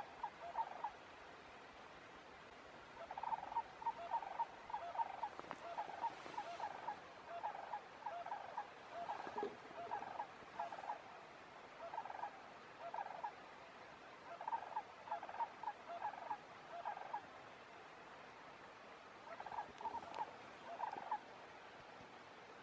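An animal's short chirping calls, repeated in quick bursts of several notes, with pauses between the bursts.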